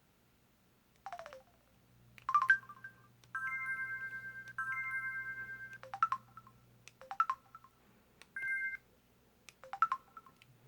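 Electronic tones from a Samsung Anycall SPH-W2500 mobile phone's speaker: a short falling chirp, then a string of brief chime-like blips and two longer held chords of a few steady notes, one after another like separate built-in alert and effect sounds.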